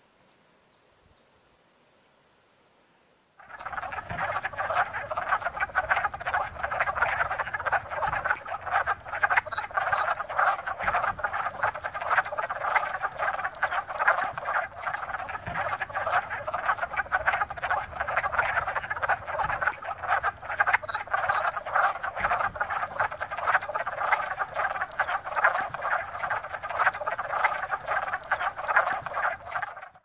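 Chorus of male wood frogs calling to attract mates: many short, duck-like clucking calls overlapping into a dense, continuous din. It starts suddenly about three and a half seconds in, after near silence, and cuts off abruptly at the end.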